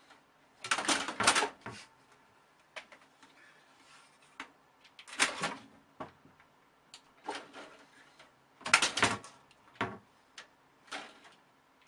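Clusters of knocking and rattling against a plastic computer tower as a cat paws at it and bumps into it: a loud clatter about a second in and again near nine seconds, with smaller knocks in between and near the end.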